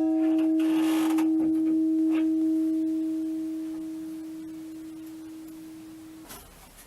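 Church tower bell's deep hum ringing on after being struck and slowly fading, with a few faint knocks in the first couple of seconds. The tone stops abruptly near the end.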